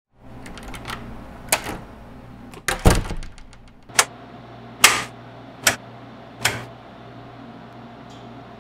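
Wall toggle light switches being flipped, a string of sharp clicks about a second apart, with a heavier knock among them about three seconds in. A steady low hum runs underneath.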